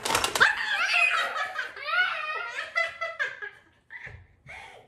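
A quick clatter of clicks right at the start as the Rattlesnake Jake toy snake springs up out of its coil, then a child and a woman laughing and shrieking.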